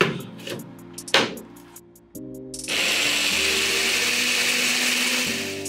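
Electric blender-grinder grinding lumps of charcoal to powder in its glass jar: two knocks as the jar is set on the base. Then the motor runs loudly for about two and a half seconds and dies down near the end.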